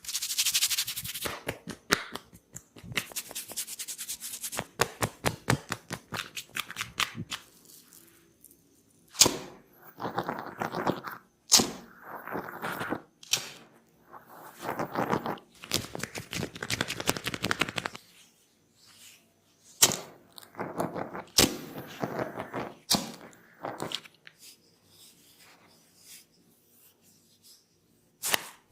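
Close-up hand massage of a head: runs of quick rubbing, patting and tapping strokes on hair and skin, broken by a few sharp slaps that are the loudest sounds.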